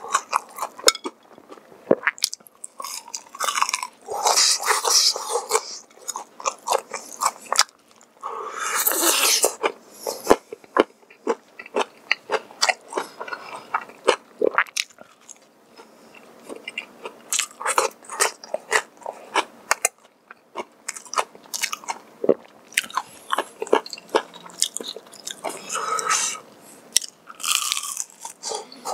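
Close-miked eating of crispy honey-glazed fried chicken and potato wedges: crackling crunches as the coating is bitten, then wet chewing. Louder bursts of crunching come about four, nine and twenty-six seconds in, with softer chewing between them.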